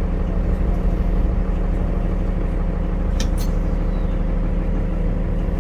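Cabin sound of a Nova Bus LFS underway: its Cummins ISL inline-six diesel running at a steady speed under a low road rumble, with a couple of brief rattling clicks about three and a half seconds in.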